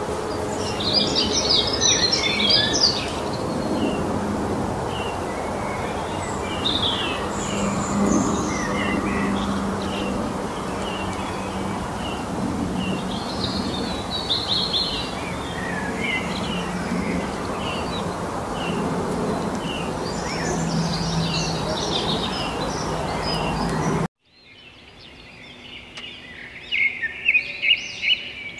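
Small birds chirping and twittering over a steady background of outdoor noise. About 24 seconds in, the sound cuts off abruptly, and after a short pause a quieter stretch of birdsong begins, with bursts of rapid twittering near the end.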